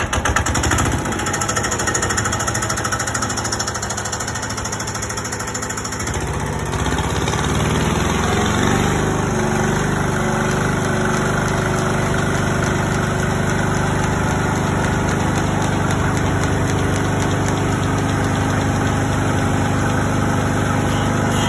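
Single-cylinder water-cooled Kubota diesel catching just after a hand-crank start and running. About six seconds in, its sound changes and grows louder, then holds steady.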